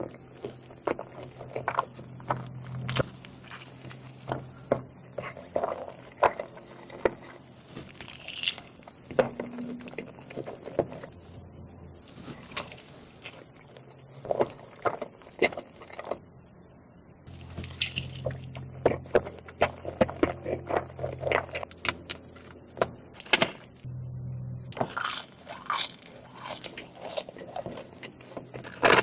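Close-up eating sounds: irregular bites, chewing and crunches with the handling of food, many short sharp clicks spread through the whole stretch.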